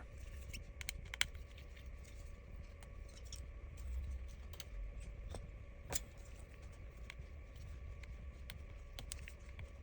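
Faint, scattered light clicks and taps of small tools on the phone's internal parts, over a low steady hum.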